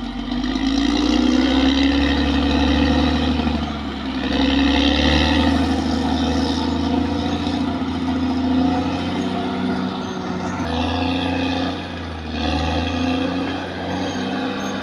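Caterpillar D6R XL bulldozer's diesel engine running under load, swelling and easing several times as the machine works.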